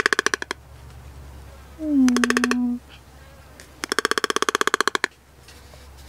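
Toco toucan calling with rattling croaks, each a rapid train of pulses: a short one at the start, another about two seconds in, and a longer one of over a second about four seconds in.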